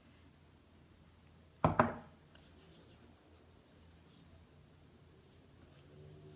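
Faint rubbing of fingertips and palms spreading makeup primer over facial skin, broken about one and a half seconds in by a brief, sharp double knock.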